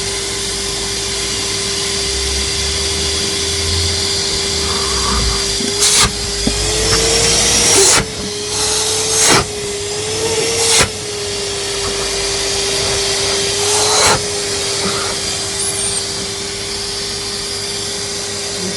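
Vacuum cleaner running steadily with a constant motor whine. Its pitch lifts slightly a couple of times, with short loud rushes of noise about six, eight, nine, eleven and fourteen seconds in.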